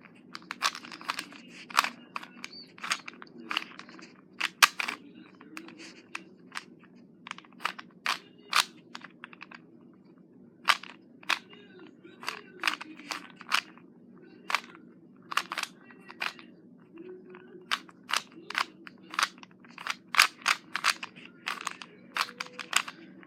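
Plastic 3x3 Rubik's cube being turned by hand: quick, irregular clicks and clacks as the layers are twisted, in short flurries with brief pauses between them.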